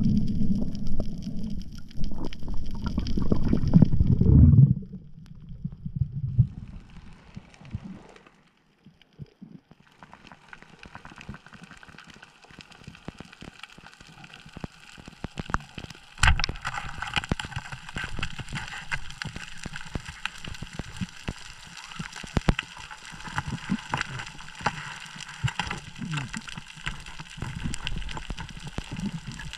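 Underwater sound on a coral reef: a loud low rush of moving water and bubbles for the first few seconds, then, after a quieter stretch, a steady fizzing crackle of many small clicks, with one sharper, louder crack about sixteen seconds in.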